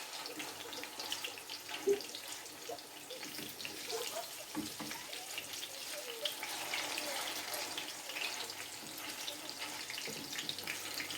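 Zucchini fritters sizzling in oil in a frying pan: a steady hiss dotted with small crackles and pops.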